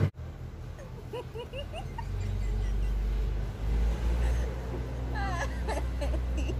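Voices from a K-pop TikTok clip: short rising yelps a second or so in and a cluster of wavering squeals around five seconds in, over a steady low hum that starts about two seconds in.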